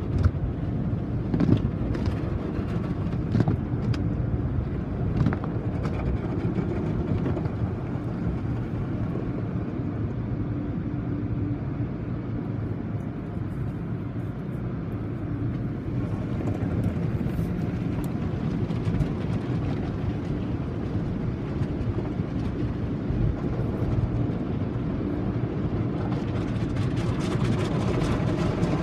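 Automatic car wash machinery running, heard as a steady low rumble with a faint hum and a few knocks in the first several seconds.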